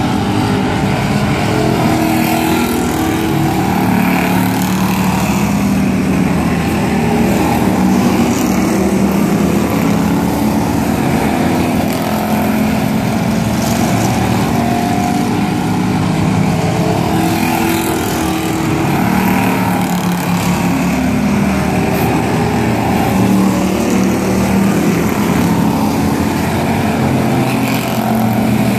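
A field of pure stock race cars running at racing speed on a short oval, several engines sounding together. Their pitch rises and falls as the cars come through the turn and pass.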